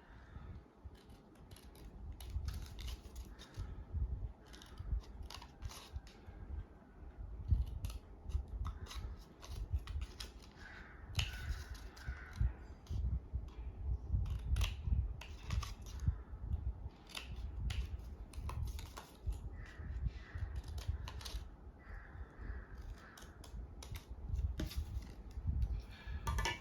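Small scissors snipping art paper: irregular short, sharp cuts with paper being handled between them.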